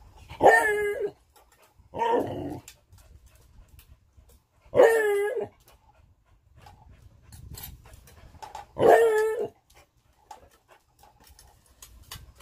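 A dog vocalizing in four separate drawn-out, high-pitched calls, each under a second long and a few seconds apart.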